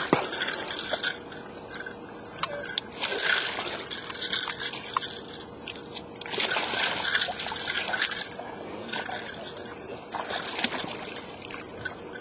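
Water splashing and sloshing in three short bursts, a hooked striped bass thrashing at the surface as it is landed.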